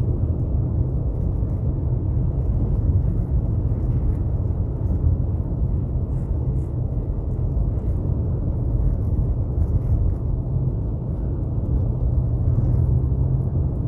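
Steady low rumble of a Subaru Impreza driving on a snow-covered road, tyre and engine noise heard from inside the cabin.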